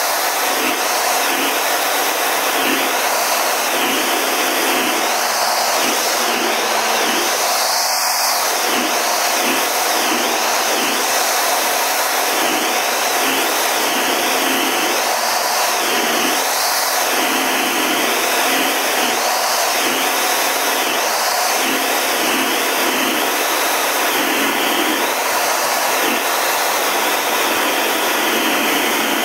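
Cockpit noise inside a CT-114 Tutor jet in formation flight: a loud, steady rush of turbojet engine and airflow noise with a slow wavering in its tone.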